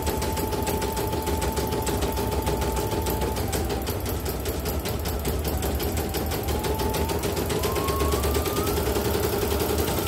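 CNY portable computerized embroidery machine stitching a test design: a fast, even clatter of needle strokes over a motor whine that dips a few seconds in, then climbs higher in the second half. It runs after a repair for heavy turning and uneven stitching, with a new inner rotary hook, presser foot and bobbin case fitted.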